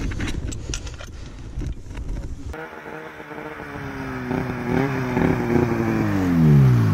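Snowmobile engine running as the sled rides up, its pitch dropping steeply near the end as it slows to a stop; the first couple of seconds hold scattered knocks and scraping.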